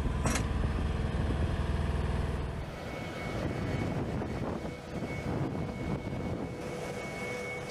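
A munitions loader's engine running with a low rumble and one sharp click early on. About two and a half seconds in, the sound changes to quieter flight-line machinery noise with a steady high whine.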